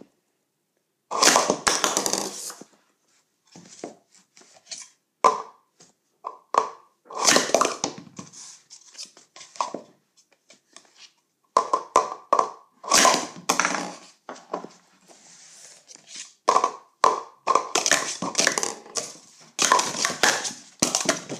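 Green plastic sport-stacking cups being stacked up and down at speed: runs of quick plastic clacks and clatter as cups are slid together and set down on the mat, with short pauses between runs.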